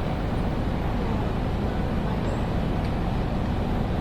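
Steady room ambience of a large station hall: an even low hum with a faint murmur of distant voices and no distinct events.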